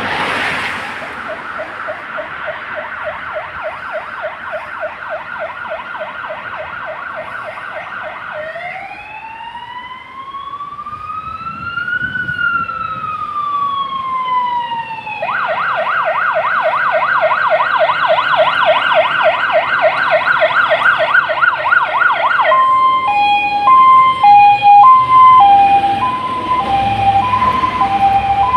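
Siren of a Renault Kerax GCBA 8/50 fire engine on an emergency run, growing louder as it approaches. It plays a fast warble, then one slow rising and falling wail, a fast warble again, and near the end a two-tone hi-lo that switches about once a second. A car passes at the very start.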